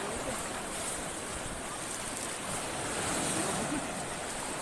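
Shallow surf washing around waders' legs and the net at the shoreline, a steady rush of water.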